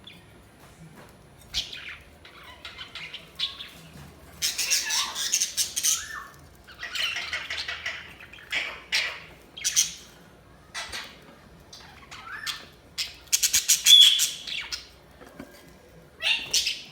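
Budgerigars chirping and squawking in bursts: short, harsh, buzzy calls and chatter, with quiet gaps between them and the loudest, densest calls about four to six seconds in and again around fourteen seconds.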